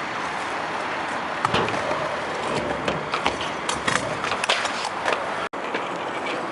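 Stunt scooter riding on a concrete skatepark: a run of sharp clacks and knocks from the wheels and deck striking the surface, over a steady hiss of outdoor background noise, with the sound cutting out for an instant near the end.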